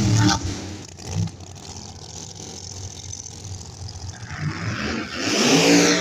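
Drag car's engine at full throttle as it pulls away down the strip, its note dropping and fading quickly into the distance. About five seconds in, another car's engine revs up loud and close.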